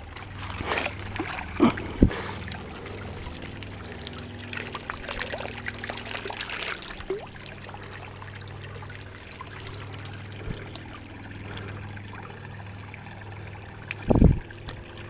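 Shallow creek water trickling, with water splashing and dribbling off a wet T-shirt net as it is dipped into the creek and lifted out. A brief thump near the end.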